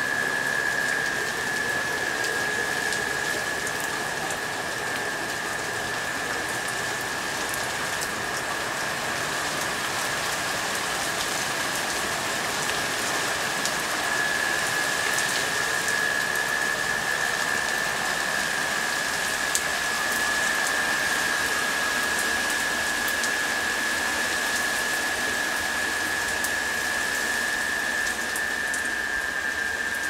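Steady high humming of cicadas, one unbroken tone, over rain falling on leaves and wet paving with scattered raindrop ticks.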